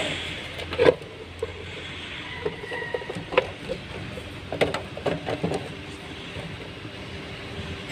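Hard plastic parts of a car's fuel pump module clicking and knocking as they are handled and fitted together by hand: a few separate knocks, the loudest about a second in, then a quick cluster of clicks in the middle, over a steady low hum.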